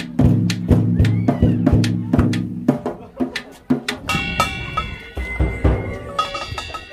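Irregular strikes with a stick and a padded mallet on a metal snare drum and a small hand drum, about two to three hits a second at first, then sparser. From about four seconds in, steady high tones sound over the taps.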